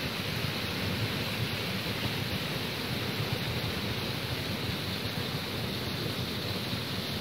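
Steady, even rush of water from a mountain waterfall.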